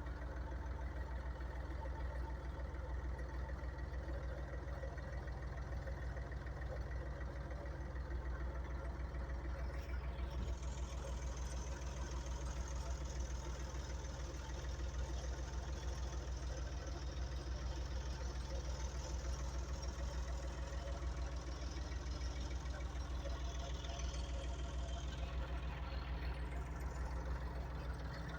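Three-cylinder Perkins diesel of a 1993 Landini Blizzard 50 tractor running steadily at constant speed. A high hiss joins about ten seconds in and falls away a couple of seconds before the end.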